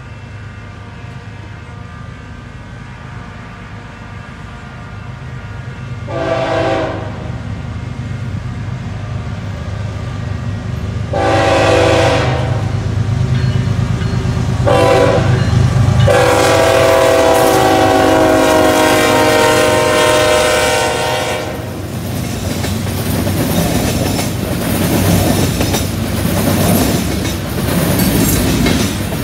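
Diesel freight locomotives approaching with a low engine rumble and sounding a multi-note horn four times: about one second, two seconds, a short toot, then one blast held about five seconds. After the horn stops, the locomotives pass and the freight cars roll by with wheels clicking and clanking over the rail joints.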